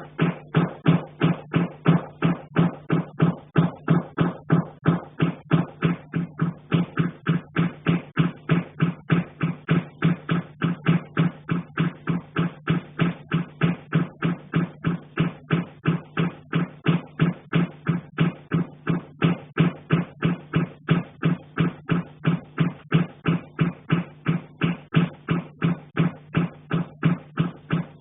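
A heating pipe being struck over and over in an even rhythm, about two to three knocks a second, each knock ringing with a low metallic tone that carries through the pipe into the apartment.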